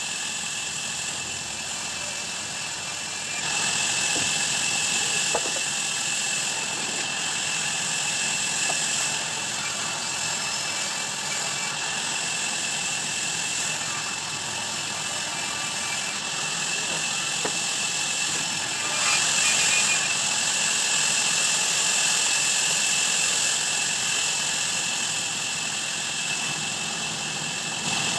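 Sawmill band saw running steadily. It gets louder about three seconds in and again around nineteen seconds.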